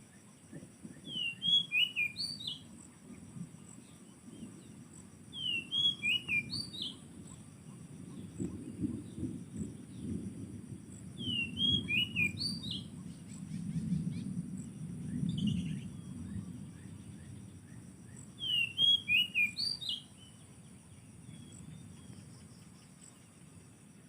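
Oriental magpie-robin (kacer) singing four short phrases of quick whistled notes, each rising and falling, repeated every few seconds, over a steady high-pitched drone.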